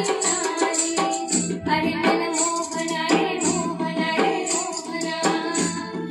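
A woman singing into a handheld karaoke microphone over backing music with a steady drum beat.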